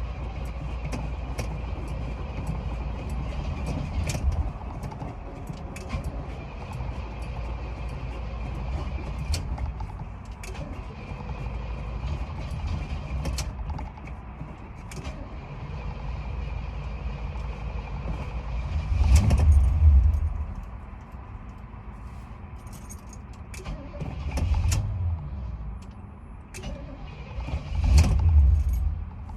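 Car engine being cranked on a hard start, a steady low rumble with scattered clicks, swelling loud twice in the second half.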